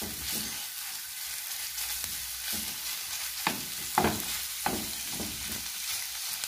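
Ground meat sizzling in olive oil with browned chopped onions in a nonstick frying pan. A wooden spoon scrapes against the pan several times as the meat is stirred and broken up.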